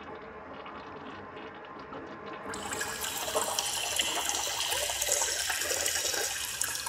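A toilet flushing: a rush of water that sets in about two and a half seconds in and dies away near the end.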